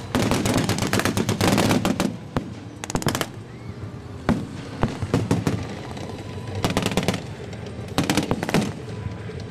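Bursts of machine-gun fire from armoured vehicles' mounted guns, with scattered single rifle shots between them. A long rapid burst runs through the first two seconds, a short one comes around three seconds, and further bursts come around seven and eight seconds.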